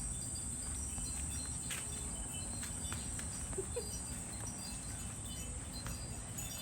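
Insects chirring in a steady high-pitched drone, over a low rumble with a few faint clicks.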